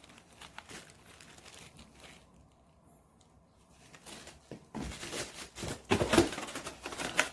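Packaging being handled while parts are unpacked: faint scattered clicks at first, then louder crinkling, rustling and knocks in the last two and a half seconds.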